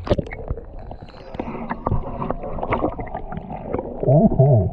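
Water gurgling and sloshing with many small knocks and clicks, and a short muffled voice-like sound near the end.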